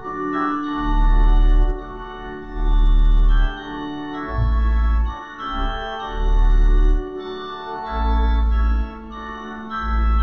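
Organ playing sustained chords, with a deep bass note sounding about every two seconds under them.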